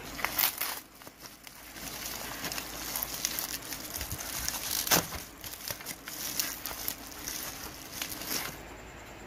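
Plastic packaging wrap crinkling and rustling as it is pulled and peeled open by hand, with scattered sharp crackles and one louder snap about five seconds in. The rustling stops shortly before the end.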